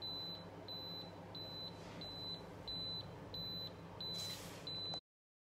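Colt smoke control panel's sounder beeping, a high-pitched tone repeating about one and a half times a second, as the panel signals an active fire-mode indication. The beeping cuts off suddenly near the end.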